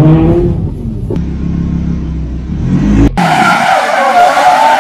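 Ferrari 308 rally car's engine running hard on a wet road. About three seconds in, the sound changes abruptly to a wavering tyre squeal as the car slides.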